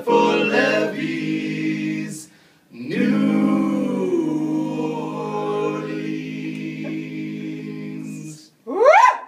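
Male barbershop quartet singing in close four-part a cappella harmony, ending on one long held chord of about five seconds. Near the end a short, loud rising vocal whoop.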